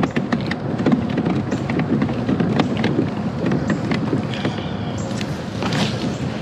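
Baitcasting reel being cranked to retrieve a frog lure, giving an irregular run of small clicks and knocks over a steady rushing noise.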